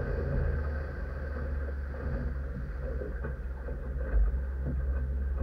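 Motorboat under way: its Mercury Verado outboard engine runs with a steady low hum under a hiss of water and wind.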